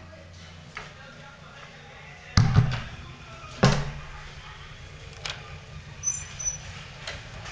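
A door being handled and opened: two loud bangs a little over a second apart, about two and a half seconds in, followed by a few lighter clicks.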